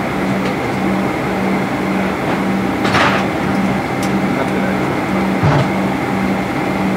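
Steady ventilation noise inside a Boeing 767-300 cabin, with a low hum that pulses about twice a second. At the cabin door a brief swish comes about three seconds in, a light click a second later, and a dull thump near the end, as the door is closed and secured.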